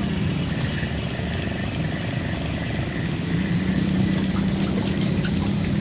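A steady low engine drone, its hum swelling about halfway through and fading near the end, over a constant high-pitched buzz.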